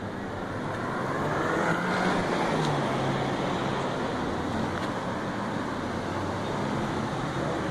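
Steady motor-vehicle noise, with a low hum that shifts slowly in pitch. It grows a little louder over the first two seconds and then holds.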